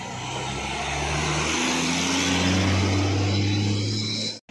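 Diesel engine of a Hino truck pulling out of a narrow tunnel and passing close by. Its pitch climbs as it gains speed, and it is loudest about halfway through. The sound breaks off abruptly near the end.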